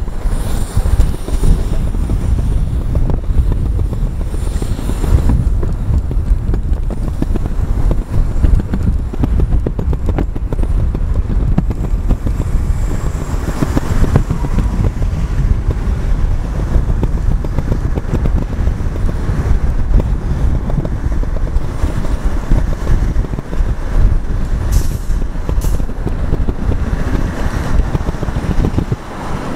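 Wind buffeting the microphone: a loud, uneven low rumble throughout.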